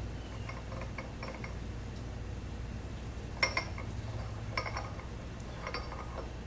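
Small steel parts clinking as screws are taken out of a collar on a Monarch 10EE lathe spindle. A few light clicks come about half a second to a second and a half in, then three sharper, ringing clinks a little over a second apart, over a steady low hum.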